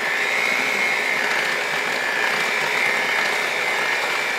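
Cuisinart seven-speed electric hand mixer running steadily with a high motor whine, its beaters mixing flour into cake batter.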